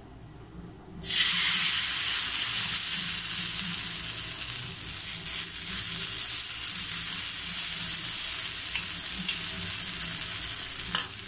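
Cucumber and semolina batter sizzling on a hot oiled dosa griddle. The sizzle starts suddenly about a second in as the batter goes onto the pan and then holds steady while it is spread with a spoon. There is a short tap near the end.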